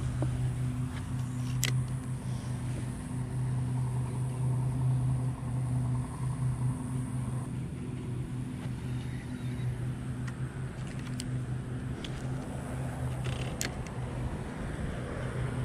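A motor runs with a steady low hum throughout, and a few sharp clicks sound over it.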